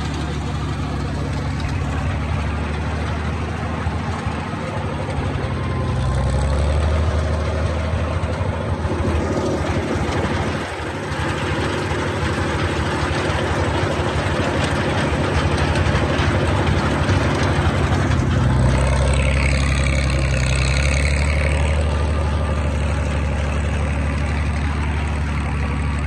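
Farm tractor engine running steadily while towing a hay mower across a field, its note shifting in pitch and loudness a few times: up about six seconds in, and again a little before the last third.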